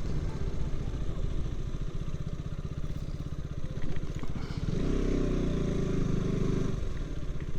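Motorcycle engine running at idle, its firing pulses steady, with a louder, fuller stretch of engine sound lasting about two seconds from roughly five seconds in.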